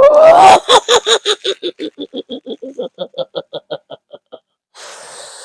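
A medium laughing in a high, shrill voice as the kuntilanak spirit is said to enter: a loud vocal start, then a rapid string of short laughs, about five a second, fading away over about four seconds. A breathy hiss follows near the end.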